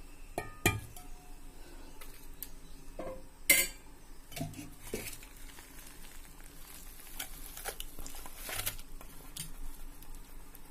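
Stainless-steel bowl handled, giving scattered metal clinks and knocks, the loudest about three and a half seconds in, with softer scraping sounds later.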